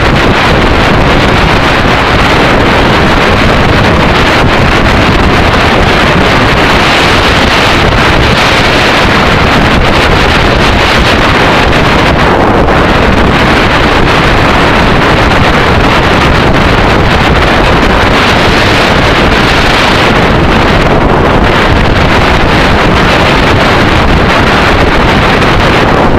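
Steady, loud wind noise buffeting a motorcycle-mounted camera's microphone at road speed, mixed with the running of the Yamaha XT600E's single-cylinder engine at a steady cruise.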